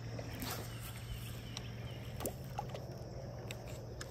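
Low steady hum of the boat's electric trolling motor running, with a few faint clicks and taps of fishing tackle being handled.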